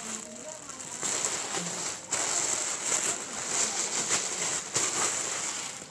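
Crinkling and rustling of a clear plastic wrapper being handled and pulled off a new backpack, with many short crackles.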